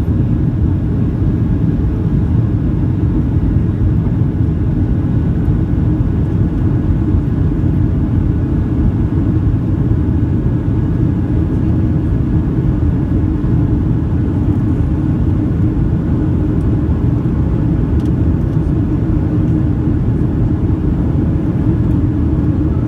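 Steady airplane cabin noise in flight: the engines' drone and airflow heard from inside the cabin, unchanging throughout, with a few faint steady tones above the rumble.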